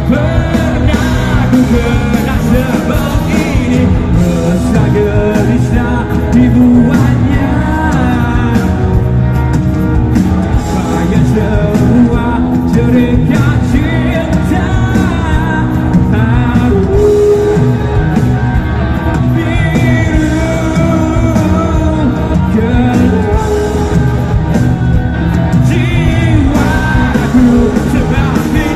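Live rock band playing a song: electric guitars and full band under a male lead vocal, loud and continuous, heard from the audience.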